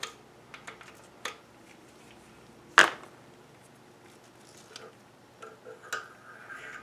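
Metal machine parts being handled: scattered light clinks, one sharp metallic knock a little before the middle, then a few more clicks and a short scrape near the end.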